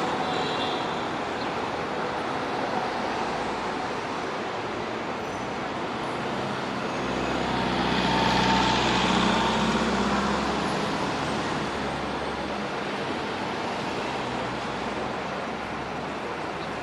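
City street traffic: a steady wash of passing vehicles, swelling with a deeper rumble as a heavy vehicle goes by about halfway through.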